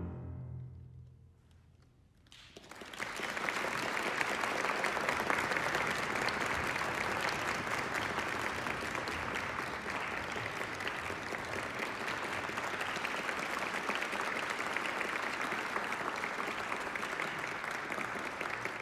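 The last chord of a wind ensemble fades out in the hall's reverberation. After about two seconds of near quiet, an audience breaks into steady applause.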